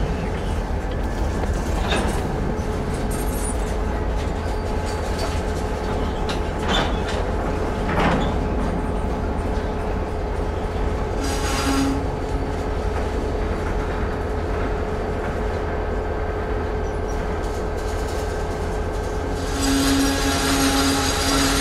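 Diesel freight train on the tracks: a steady rumble of locomotives and cars with a steady whine, a few clanks in the first several seconds, a short hiss about halfway through and a longer hiss near the end.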